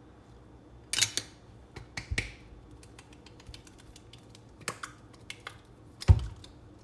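Irregular clicks and taps of cans and utensils being handled while cooking, with a few louder knocks and one heavy thump near the end.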